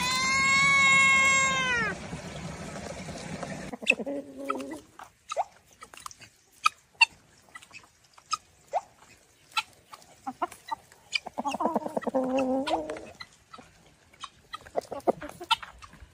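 A cat meows once, a long call that drops in pitch at its end. Then hens make low clucking calls among many sharp ticks and taps, with a longer, wavering hen call about halfway through.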